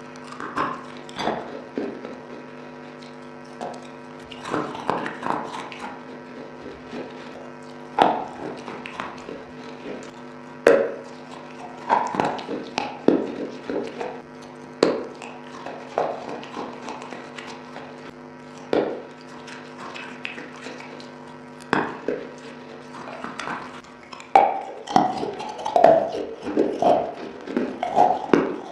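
Close-up bites and chewing of wet clay pot pieces: irregular crisp crunches and crackles with pauses between, thickening into rapid crunching near the end.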